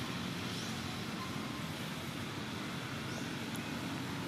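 Steady outdoor background noise: an even low rumble with a hiss over it.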